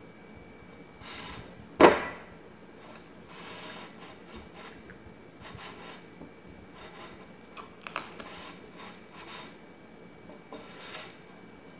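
A banana scraping and rubbing against a white plate and the table as it is pushed about by the mouth alone. There is one sharp clack just under two seconds in and a few smaller knocks later.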